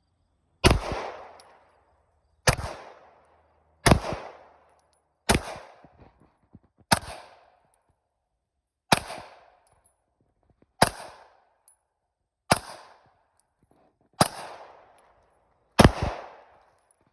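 Ten pistol shots fired at a slow, steady pace, about one every one and a half to two seconds, each a sharp crack with a short echoing tail.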